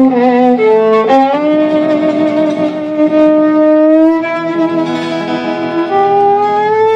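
Instrumental music in a Romanian gypsy style: a melody of long held notes that slide from one pitch to the next, over lower steady accompanying notes.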